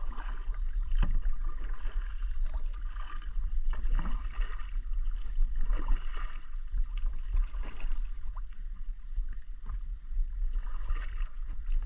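Kayak paddle strokes in calm river water: scattered small splashes and drips from the blades, over a steady low rumble.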